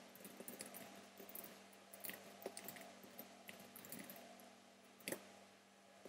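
Faint, irregular clicks of computer keyboard typing over a low, steady hum.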